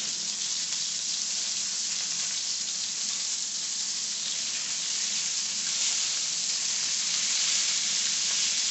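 Kingfish steaks sizzling steadily as they shallow-fry in hot avocado oil in a skillet.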